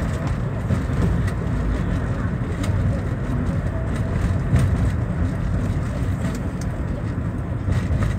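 Steady low rumble of engine and tyre noise heard inside a taxi's cabin as it drives along a highway.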